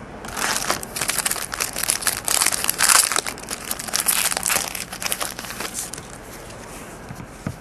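Foil wrapper of a 2010 Bowman jumbo baseball pack crinkling and crackling as the pack is pulled from the box and opened, dying down about six seconds in.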